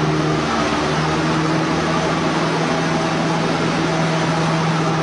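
Light aircraft's engine and propeller running steadily, heard from inside the cockpit: a constant hum over a loud even rush of noise.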